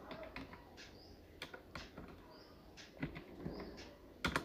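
A few scattered key presses on a computer keyboard during text editing: soft separate clicks, with a sharper double click near the end.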